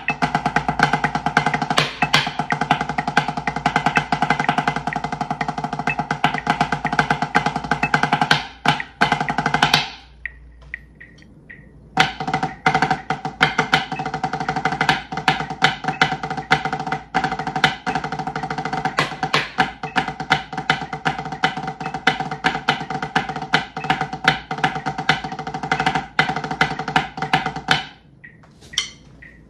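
Wooden drumsticks playing rudimental snare-drum etudes on a practice pad: fast, dense strokes with accents, flams and rolls, over a steady pitched tone. The playing stops about ten seconds in, resumes with the next etude two seconds later, and stops again shortly before the end.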